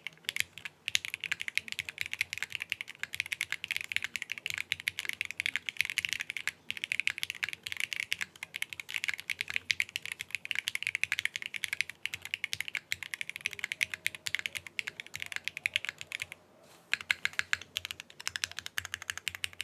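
Fast, continuous typing on a Qwertykeys QK60 60% mechanical keyboard with lubed frankenswitches (Strawberry Jelly v2 tops on Gateron Milky Yellow Pro bottoms), an aluminium plate, no foam and GMK keycaps: a dense run of keystroke clacks, with a brief pause near the end.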